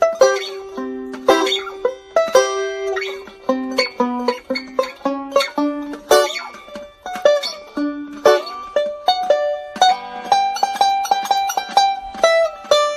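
Instrumental outro music: a plucked string instrument picking a quick melody of separate notes that ring and fade, with no drums or bass.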